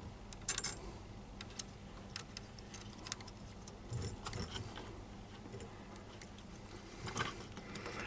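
Faint, irregular small clicks and scrapes of the Flashforge AD5X's quick-release nozzle and heatsink being handled and seated in the print head, over a faint steady low hum.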